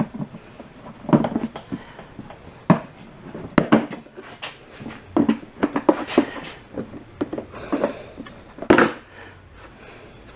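Irregular clicks, knocks and rattles from handling an air compressor's top cover and its parts as it is worked loose. The loudest knock comes near the end.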